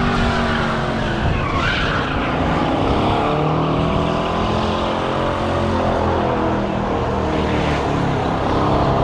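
A Corvette doing a burnout: the engine is held at high revs with the pitch wavering, and the tyres squeal and skid throughout.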